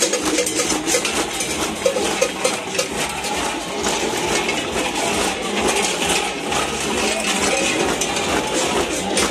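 Continuous metallic jingling and clinking amid the general noise of a street crowd.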